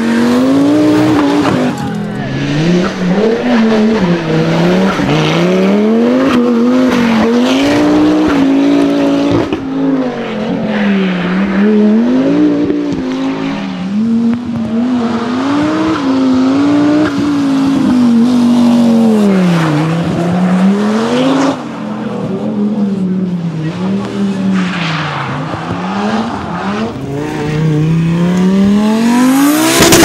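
Turbocharged inline-five engines of Audi Quattro rally cars at full throttle, the engine note climbing through the revs and dropping back at each gear change or lift, over and over. Near the end a car goes by close, its pitch rising sharply and then falling away as it passes.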